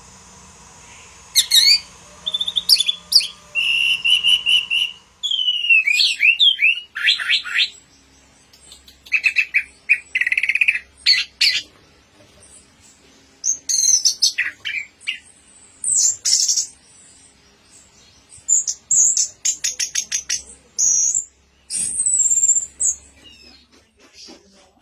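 Orange-headed thrush singing: a run of short, varied phrases of clear whistles, slurred notes and rapid trills, with brief pauses between phrases.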